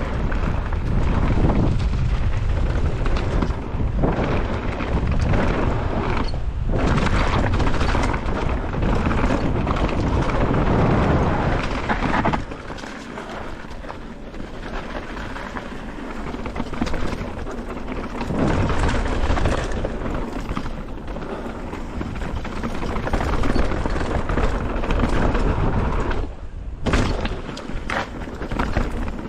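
Mountain bike descending a rough downhill trail: wind buffeting the microphone with a heavy rumble, under tyre noise and rattling knocks over rough ground. The rumble is loudest in the first half and drops about twelve seconds in.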